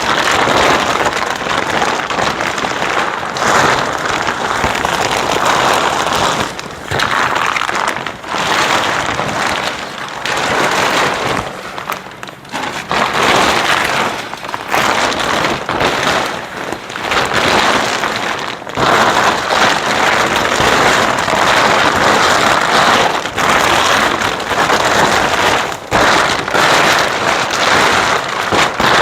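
Loud rustling and crinkling of a PE plastic greenhouse cover being pulled and stretched over its frame, with a few short breaks.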